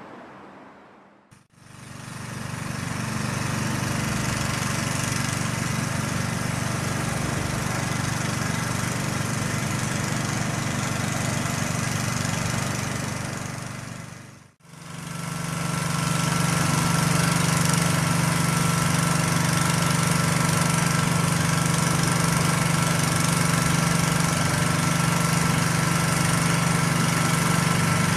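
Diesel switcher locomotive engine idling steadily close by. It fades in at the start, drops out briefly about halfway and comes back louder, with a strong low hum and a thin higher whine over it.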